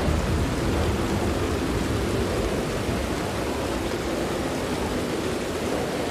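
Steady rain on a tent with the low rumble of thunder dying away over the first few seconds.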